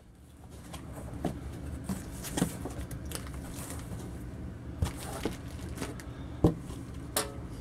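Cardboard shipping box flaps being folded open and the box handled: faint rustling with a few soft knocks, the sharpest about six and a half seconds in.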